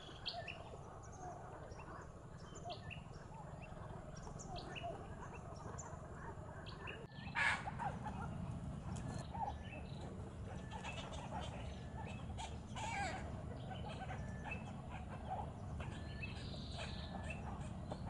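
Birds calling around nests in a mangrove colony: many short chirps and squawks, some sparse and some overlapping, with one louder squawk about seven and a half seconds in, over a steady low rumble.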